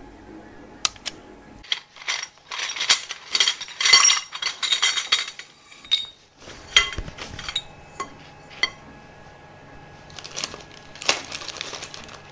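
Aluminium V-slot extrusion rails clinking and knocking against one another as they are handled, a dense run of clinks in the first half and a single louder knock a little past the middle. Plastic sheeting crinkles near the end.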